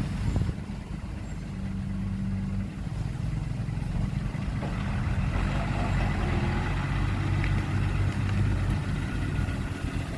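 Heavy construction vehicle's diesel engine running steadily with a low hum, getting a little louder about four seconds in.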